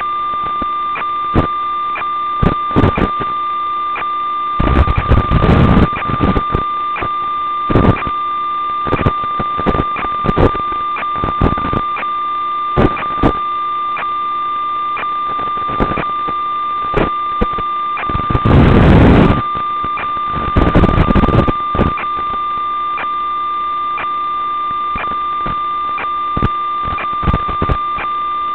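Steady electronic buzz with a high whine, broken by irregular bursts of crackling static. This is the audio channel of a 5.8 GHz analog FPV video link, recorded by the DVR, rather than the quad's motors. The longest burst of static comes a little past the middle.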